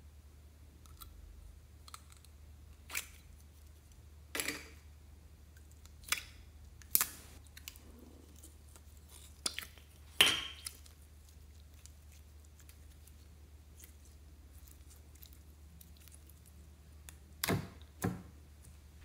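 Handling noise from a plastic candy-shaped slime container and its slime: scattered sharp clicks and knocks as the plastic ball is opened and handled, the loudest about ten seconds in, with sticky sounds as the yellow slime is pulled out and dropped into a glass bowl, and a pair of knocks near the end.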